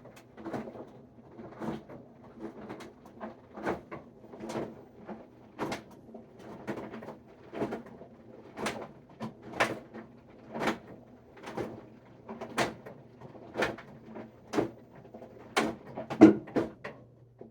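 Whirlpool WFW92HEFC0 front-load washer knocking sharply about once a second over a steady low hum, with the loudest knock near the end. The cause of the knock is unknown to the owner, who hears it when the drum stops rotating.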